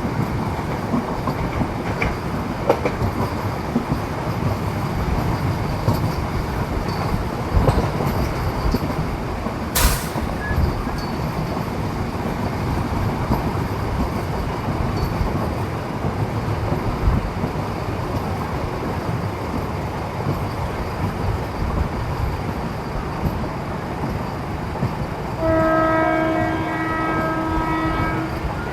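MEMU electric multiple unit train running on the rails: a steady rumble with scattered wheel clicks and one sharp knock about ten seconds in. A train horn sounds for about three seconds near the end.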